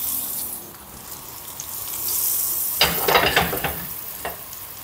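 Hot oil sizzling in a frying pan as breadcrumbed lasagna toppers go into it, with a louder spell of crackling sizzle about three seconds in.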